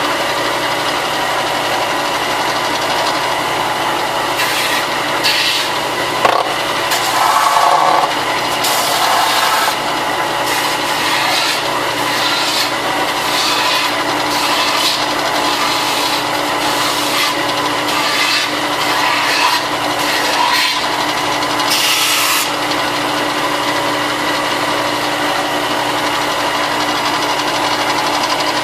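Power sander running steadily, with plastic armor pieces pressed against it in irregular scraping strokes as their cut edges are sanded straight.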